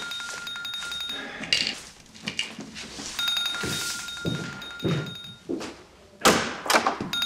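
Mobile phone ringing, its buzzing ringtone coming in rings about two seconds long, with a few dull thuds like footsteps and a door, the loudest about six seconds in.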